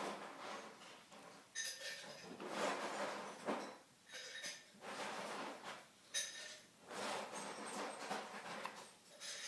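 Soft rustling and knocking, with two sharp ringing clinks like dishes or cutlery about four and a half seconds apart.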